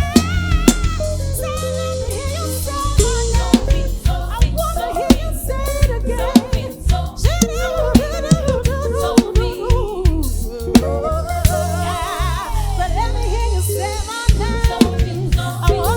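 Live band playing an upbeat soul-funk groove on drum kit and bass, with wordless sung runs and ad-libs over it.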